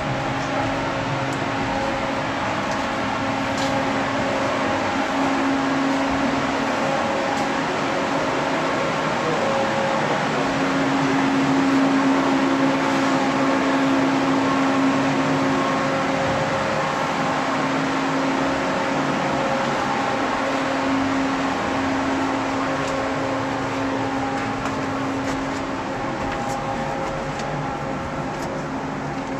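Steady machine hum of a running fan or blower, with a low tone that grows a little stronger around the middle and then eases.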